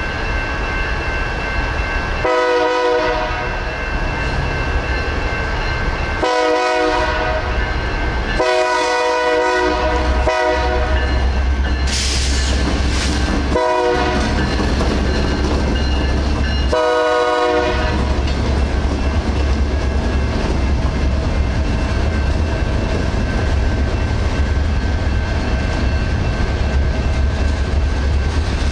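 Union Pacific diesel freight locomotives blowing the horn for a grade crossing: five blasts over the first eighteen seconds, mostly long and one short. From about ten seconds in they give way to the steady low rumble of the engines and the freight cars rolling over the crossing with a clickety-clack. The crossing-signal bells ring steadily underneath throughout.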